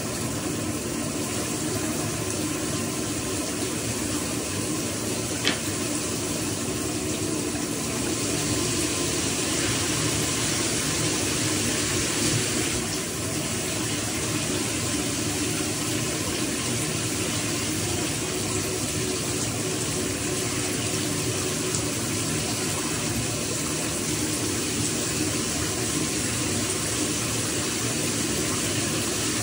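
Shower water running steadily, a little louder for a few seconds near the middle, with one sharp click about five seconds in.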